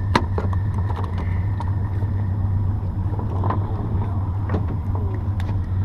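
Boat motor running steadily with a low hum, with a few sharp clicks on top, the loudest just after the start.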